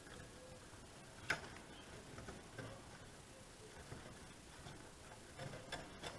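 Faint small clicks and taps of a plastic pry tool and fingers working the sheet-metal chassis and circuit board of a VW RNS510 radio, with one sharp click about a second in and a few more taps near the end.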